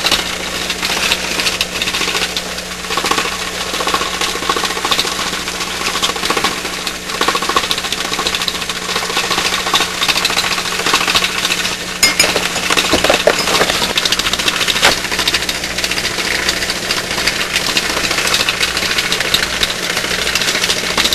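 Home-built three-tube putt-putt (pop-pop) steam engine running in water, giving its own distinct, fast and steady popping rattle.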